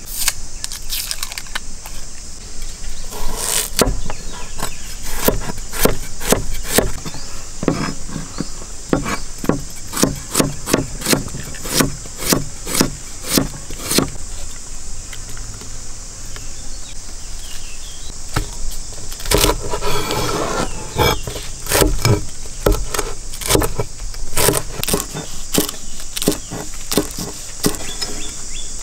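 Repeated sharp knocks in quick runs of about two to three a second, with a pause in the middle, over a steady high-pitched insect drone.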